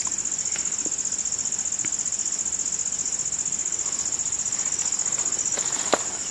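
Steady, high-pitched drone of insects calling together, with a fast even pulse. A single sharp click sounds near the end.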